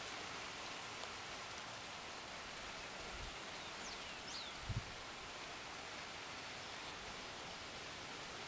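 Steady outdoor hiss of wind through the field and banana leaves. Two faint high chirps come around four seconds in, and a brief low bump follows just before five seconds.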